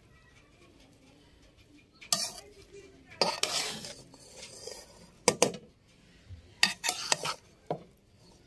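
Metal spoon scraping and clinking against a metal cooking pot as cooked biryani rice is turned and mixed. After a quiet start come several separate scrapes and sharp clinks.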